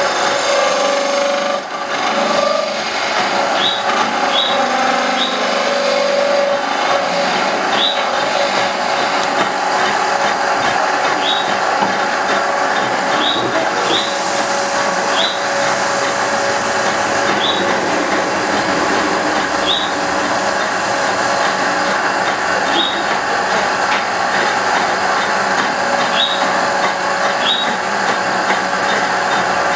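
Electric wood lathe running steadily with a hum while a wooden kokeshi doll blank is turned, a hand-held cutting tool shaving the spinning wood. Short high squeaks recur every second or two.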